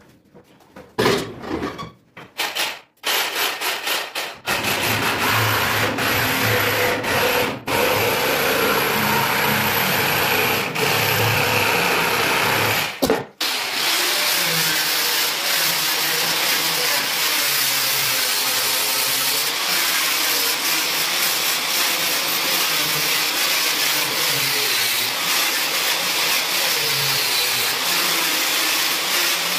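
Handheld electric angle grinder with an abrasive disc grinding the curved edge of a plywood counter top to round it off. The motor runs in short stop-start bursts for the first few seconds, then steadily as the disc works the wood, with a brief break about 13 seconds in.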